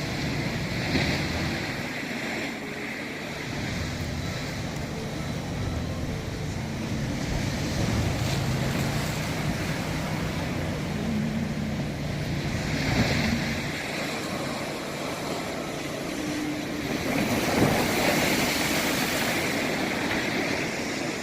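Sea waves breaking and washing in, swelling louder several times, with wind rumbling on the phone's microphone.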